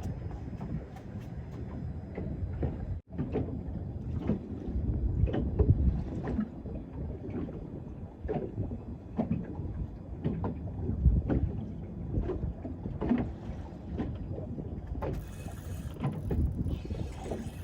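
Choppy water slapping against the hull of a small fishing boat in irregular splashes and knocks over a low rumble, with wind hiss on the microphone from about 15 seconds in.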